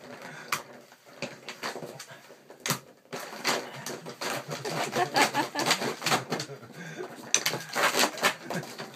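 A dog pawing at a cat's circular track-ball toy: the ball clatters around the plastic track and claws scrape the cardboard scratch pad. It makes a busy run of clicks and scrapes, with one sharp knock about three seconds in.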